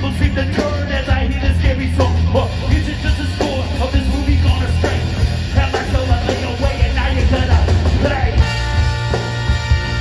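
Live ska band playing loud through a festival PA, heard from the crowd: a lead vocalist sings over drums, bass and guitars with trumpet and trombone. About eight seconds in the singing stops and steady held notes take over.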